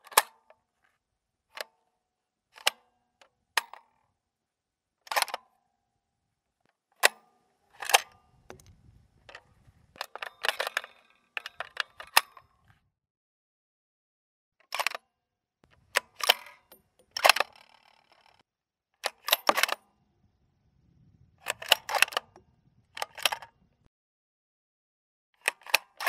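Gun reloading sound effects: a series of sharp clicks and clacks, some single and some in quick clusters of two or three, with a second or more of silence between them. A longer run of rattling clacks comes around ten to twelve seconds in.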